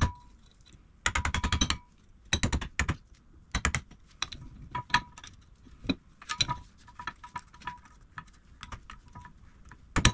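Bursts of rapid metallic clicking and rattling from a bench vise's screw and movable jaw being worked back and forth, with three stronger bursts in the first four seconds and lighter clicks after. The screw's end play has just been shimmed with washers, and some slop remains.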